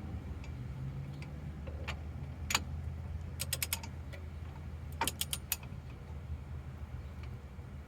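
Metal hand tools clicking and clinking while a front-suspension tie rod is worked on, with a single click about two and a half seconds in and quick runs of clicks about three and a half and five seconds in, over a steady low hum.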